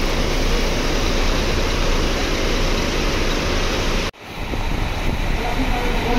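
Steady rushing rumble with no distinct tone or events. It cuts out abruptly about four seconds in and builds back within a second.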